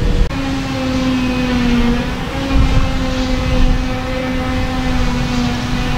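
Forage harvester and tractors running at work chopping grass: a steady, loud machine drone with a steady whine over it. The sound changes abruptly shortly after the start.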